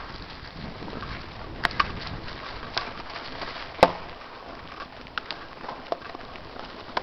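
Mountain bike rolling fast down a dry dirt trail, heard from a helmet camera: a steady rush of tyre and wind noise with scattered sharp clicks and rattles from the bike and loose stones, the loudest about four seconds in.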